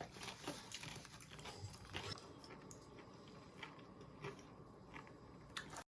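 Faint eating sounds: a person chewing and biting food, with soft irregular clicks.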